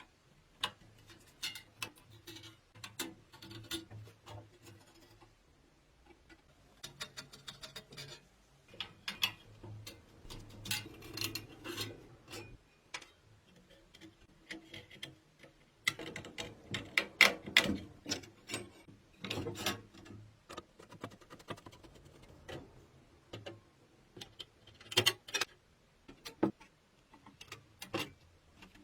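Irregular clicks, taps and light scraping of small metal parts and hand tools being handled, some in quick clusters and loudest around the middle.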